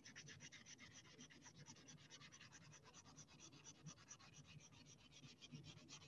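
Faint, quick, even scratching of a paper blending stump rubbed back and forth over pencil shading on multimedia paper, blending and darkening the graphite.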